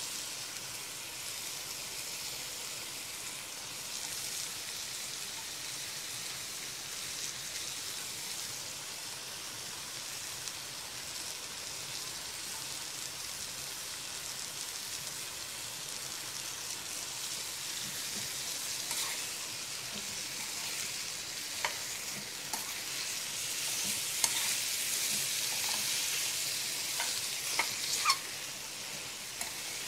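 Pieces of beef liver with peppers, garlic, vinegar and lemon juice sizzling in a hot pan: a steady frying hiss that grows louder past the middle, with occasional sharp clicks and pops in the second half.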